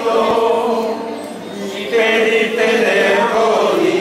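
A group of voices singing a slow Spanish devotional song in long, held notes, dropping softer about a second in and coming back strongly around two seconds.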